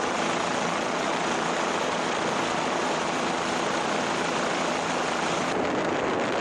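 Steady drone of a helicopter's engine and rotors, an even rushing noise with a faint low hum, unbroken throughout.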